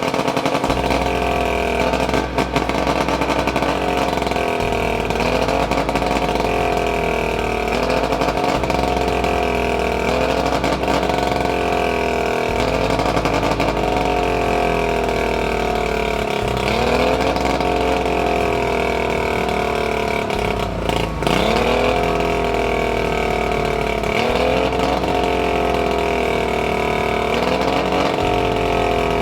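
Boat's outboard motor running and surging: its speed climbs quickly and then sags back again, in a regular cycle about every four seconds.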